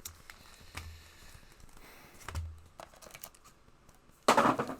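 Trading cards being handled, with scattered light clicks and flicks. Near the end comes a loud crinkle of a foil card-pack wrapper.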